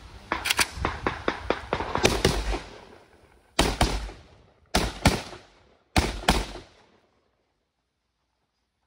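Rifle fire at a shooting match stage: a fast string of shots in the first two and a half seconds, then three pairs of quick shots about a second apart.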